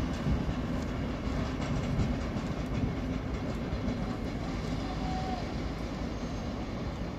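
Passenger train hauled by a pair of MÁV class 418 locomotives rolling away through a rail yard: a steady low rumble with wheels clicking over rail joints, fading slowly as it recedes.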